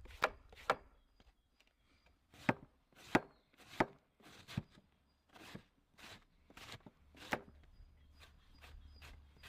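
Kitchen knife cutting cabbage on a cutting board: a string of sharp knocks as the blade hits the board, roughly one every half second to second, with a brief pause about a second in.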